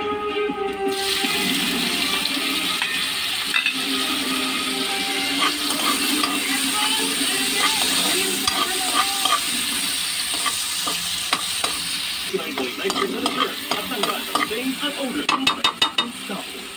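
Garlic, onion and tomato frying in oil in a wok, a steady sizzle that comes up about a second in, with stirring throughout. Near the end comes a quick run of sharp clicks as the utensil taps and scrapes the wok.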